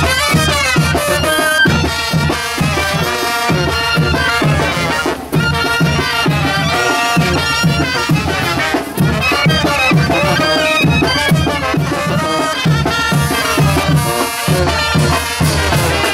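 A live brass band playing a chinelo son: a brass melody over tuba, driven by a steady beat of bass drum and cymbals.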